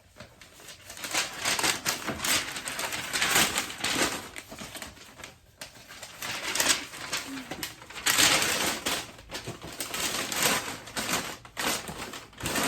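Packing paper being crumpled and rustled as it is stuffed into a cardboard box around a packed fan, in a run of irregular crackling bursts.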